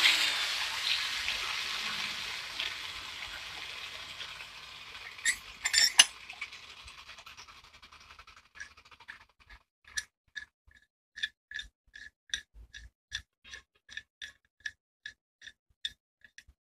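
An adjustable wrench being handled and its jaw worked: a run of short, light metal clicks, about two a second, after a few sharper knocks. A hiss fades away over the first few seconds.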